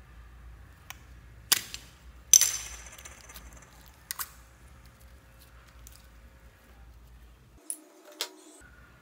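A small plastic slime container being handled and squeezed out over a plastic tub: a few sharp clicks and knocks, the loudest about two and a half seconds in with a short ringing tail.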